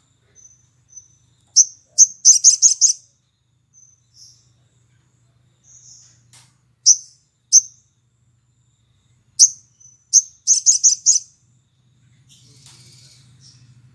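Olive-backed sunbird calling in loud, sharp, high chirps, with two quick runs of about five notes about two seconds in and again about ten seconds in.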